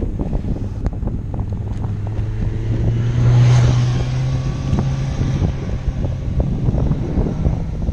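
A motorcycle overtaking, its engine note swelling to a peak about three and a half seconds in and fading as it pulls ahead. Steady wind rushes over the microphone of the moving bicycle throughout.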